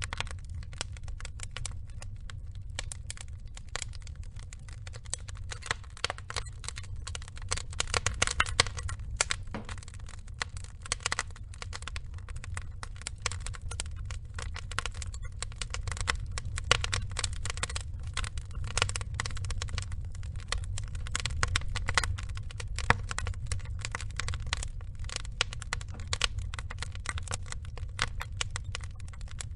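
Wood fire burning, with dense irregular crackling and popping of the logs over a low steady rumble of the flames.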